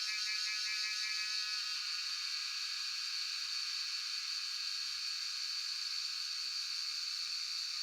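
A chorus of cicadas buzzing as a continuous high-pitched drone. A pulsing layer in the chorus fades out about a second and a half in.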